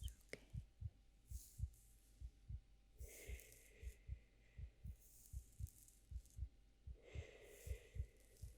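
Faint heartbeat, a steady double thump about 75 times a minute, with soft hissing swells every couple of seconds, the strongest about three and seven seconds in.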